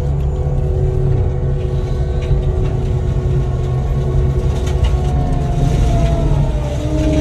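Cat 299D3 skid steer's diesel engine and hydraulic mulching head running steadily under load, heard from the operator's seat: a deep drone with a steady whine. About five seconds in, a higher whine rises and then dips.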